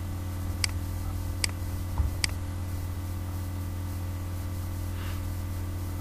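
Three sharp computer mouse clicks, about 0.8 s apart, over a steady low hum.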